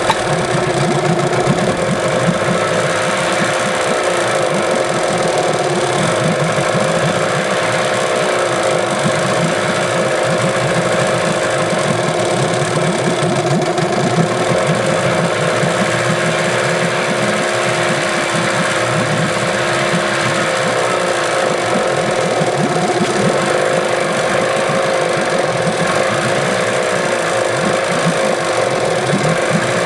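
Yamaha 8 hp outboard engine running steadily, kept going only on choke. It won't idle without choke, which the owner puts down to either worn fuel-pump diaphragms or a dirty carburettor.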